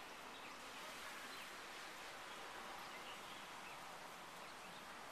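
Steady rain, an even hiss, with a few faint, short bird chirps.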